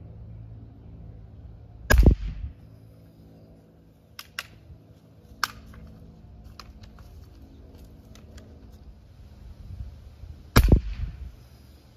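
Two shots from a Winchester Model 1977XS .177 multi-pump pneumatic air rifle charged with 10 pumps, each a sharp crack, about two seconds in and again near the end. A few lighter clicks come in between.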